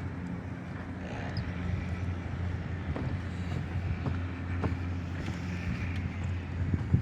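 A steady low engine hum with a few light knocks.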